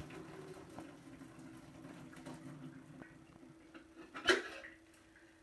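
Hot cooking water poured from a saucepan into a stainless-steel sink to strain boiled broad beans, a low rushing splash that fades out after about three seconds. A sharp metal clank of the pan comes about four seconds in, over a faint steady hum.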